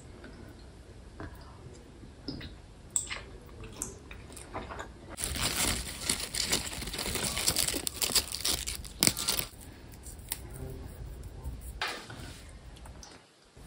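Fresh basil leaves being torn and picked by hand: a crisp, crackling rustle lasting about four seconds in the middle. A few single light clicks of a fork on a plate come before and after.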